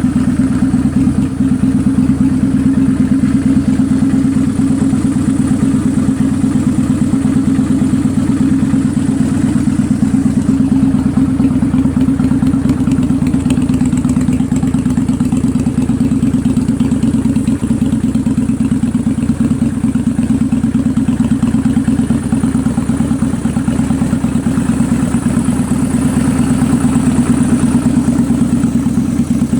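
Kawasaki Vulcan 800 Classic's V-twin engine idling steadily, with an uneven, lumpy beat from a misfire that the owner suspects comes from the carburetor and slaps back sharply through the air filter assembly.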